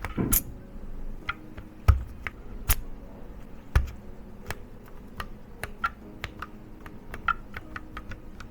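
Keys on a mechanical keyboard fitted with resin keycaps being pressed at an unhurried, irregular pace: separate clicks and clacks, a few landing with a heavier thud.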